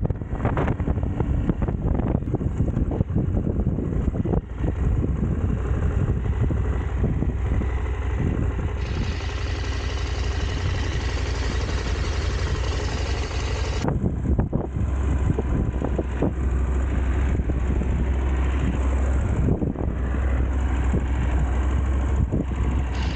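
Motorcycle engine running while being ridden, a steady low drone under wind rushing over the microphone.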